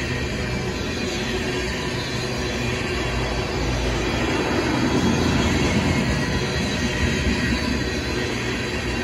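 Loaded ethanol tank cars of a freight train rolling past: a steady rumble of steel wheels on the rails that swells a little about halfway through.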